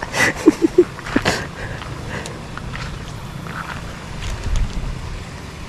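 Steady rush of a flowing river. About half a second in, three short vocal sounds, and a low rumble a little after four seconds.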